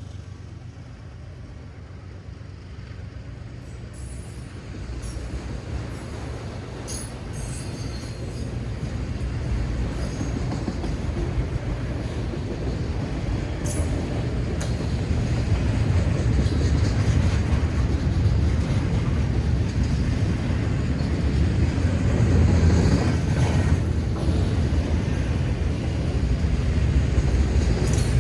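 A diesel-hauled freight train rumbling over the grade crossing. The deep rumble grows steadily louder over about the first fifteen seconds, then stays loud, with a few sharp clicks along the way.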